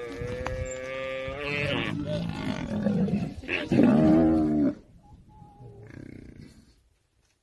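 African buffalo bawling in long, pitched calls during a fight with lionesses, the loudest call about four seconds in; the sound falls away after about five seconds.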